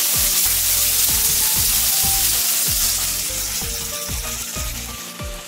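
Pineapple and mango chunks sizzling in a hot grill pan. The sizzle fades near the end as the pan is taken off the heat.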